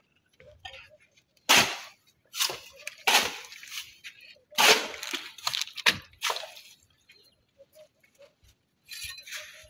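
Metal trowel scraping and scooping cement mortar off a concrete surface: a series of short, sharp scrapes, most of them in the first two-thirds, then one more near the end.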